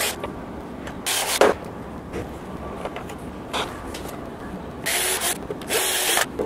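Cordless drill boring into soft pine at a bed-frame joint for the screws of a metal L-bracket, in several short bursts of about half a second each.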